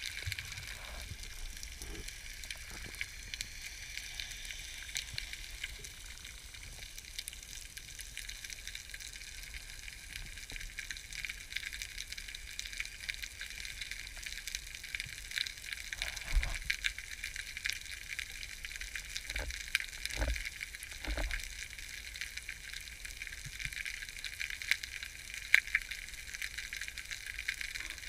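Underwater ambience over a rocky, weed-covered seabed: a steady fizzing crackle of countless tiny clicks, with a few dull low thumps past the middle.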